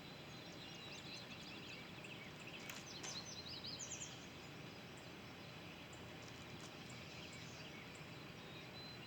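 Quiet outdoor ambience: a faint steady hiss, with a small bird's quick run of high chirps about three seconds in and a few scattered chirps elsewhere.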